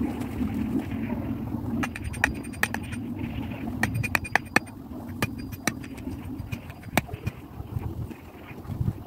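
Hatchet striking wood: a scattering of sharp, irregular knocks, bunched around two seconds in and again around four seconds, over a steady low rumble.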